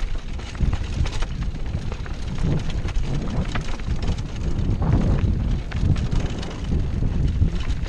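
Downhill mountain bike ridden fast over a dirt and stone singletrack, heard from a helmet-mounted camera: heavy wind rumble on the microphone with tyre crunch and irregular clicks and rattles from the bike over the rough ground.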